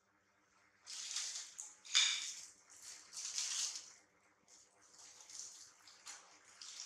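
Thin plastic bread bag crinkling and rustling in irregular bursts as soft bread is handled and pulled out of it, loudest about two seconds in.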